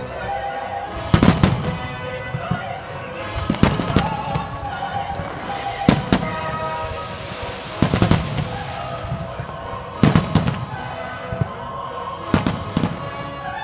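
Aerial firework shells bursting with loud bangs, mostly in pairs, about every two seconds, over music playing throughout.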